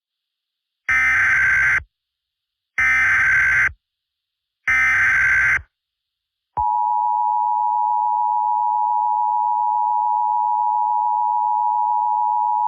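Emergency Alert System tones: three short bursts of the SAME digital header, each about a second long and about two seconds apart, then after a short gap the steady two-tone EAS attention signal starts about halfway through and holds.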